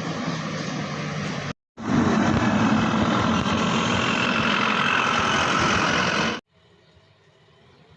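Heavy diesel machinery running. The sound cuts out abruptly for a moment about one and a half seconds in, comes back louder, then drops off sharply to a faint hum near the end.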